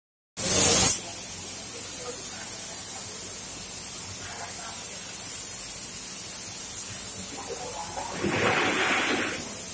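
Compressed-air spray gun hissing as it sprays glossy colour coating over concrete paver tiles. A loud burst of spray comes in about half a second in and settles to a steady hiss, and a louder rush of spraying comes near the end.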